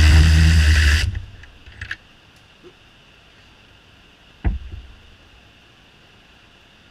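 Snap-on cordless ratchet's electric motor running steadily for about the first second, then cutting off suddenly. A couple of light clicks follow, then a single sharp thump about four and a half seconds in.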